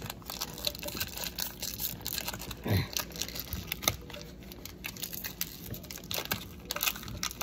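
Foil wrapper of a Pokémon booster pack crinkling and tearing as it is worked open by hand, with many small crackles.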